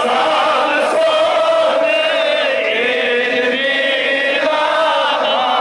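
A man chanting religious verses into a microphone in long, held melodic phrases, the notes gliding and wavering.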